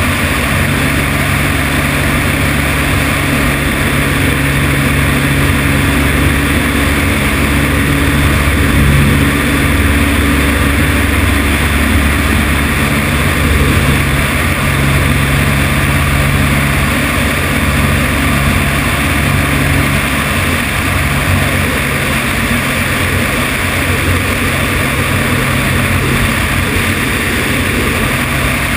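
Single-engine light aircraft's piston engine and propeller running steadily in level flight, a constant low drone. A strong rush of wind over the microphone, which is mounted outside on the wing strut, runs under it.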